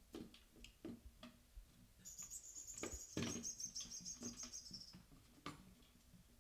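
Chirping from a kitten's caged-bird toy, high and rapid, lasting about three seconds from about two seconds in, over scattered light clicks and knocks of the plastic toy being batted and jostled.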